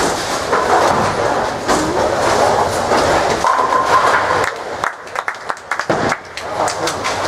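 Ten-pin bowling balls rolling down the lanes with a steady rumble, then pins clattering with a run of sharp knocks over the last few seconds.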